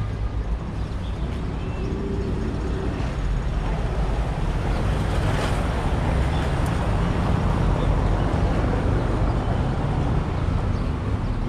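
Street traffic: a steady rumble of motor vehicles passing, growing louder around the middle.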